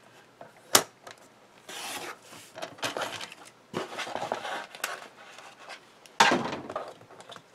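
Fiskars paper trimmer cutting paper: a sharp click about a second in, then the blade carriage scraping along its rail through the paper. Rustling and scraping follow as the cut pieces and the plastic trimmer are handled, with a loud clatter about six seconds in as the trimmer is moved off the cutting mat.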